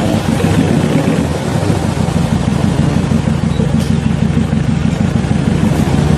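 Off-road 4x4 vehicle's engine running steadily with a dense low rumble.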